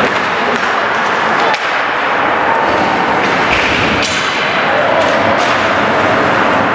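Ice hockey play in a rink: sharp clacks and thuds of sticks, puck and boards over a steady din of skates and spectator voices.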